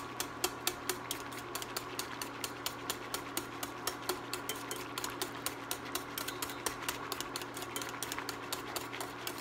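Wire whisk beating against the sides and bottom of a stainless steel pan, a quick, even clicking about five times a second, as cream cheese is broken up in boiling water. A steady hum runs underneath.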